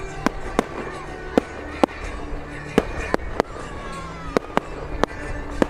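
Aerial fireworks going off: a string of sharp bangs and pops at irregular intervals, about two a second, with music playing underneath.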